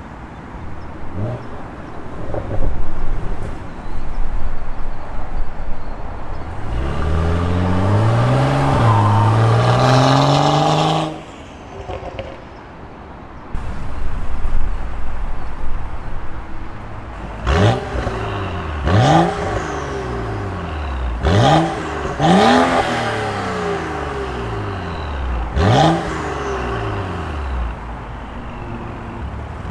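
BMW N55 turbocharged straight-six through a VRSF catted downpipe, accelerating hard with the pitch climbing through a gear change. Then five quick throttle blips, the revs shooting up and falling slowly away each time.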